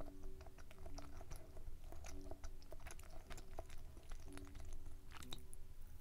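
Close-miked chewing of a dense, fudgy brownie muffin: many small wet clicks and smacks of the mouth working the sticky cake.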